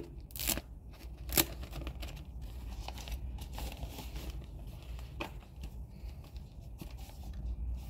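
Rustling and crinkling of paper and cardboard packaging being handled, with a few light clicks and taps: two near the start, one about five seconds in.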